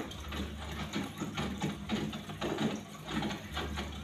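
Aquarium water bubbling and splashing in irregular bursts over a steady low hum, as from the tank's filter and pump.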